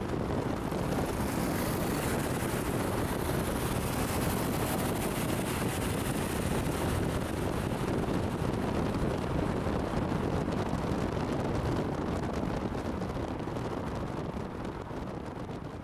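Steady rush of wind and road noise from a moving car, with traffic running alongside; no single engine stands out. It starts suddenly and eases off near the end.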